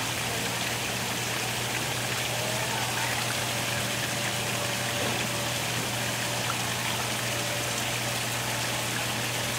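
Steady rushing noise of running water, even in level throughout, with a low hum beneath it.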